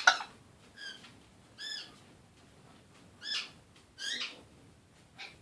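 Congo African grey parrot making a handful of short whistled calls, roughly a second apart, each rising and then falling in pitch.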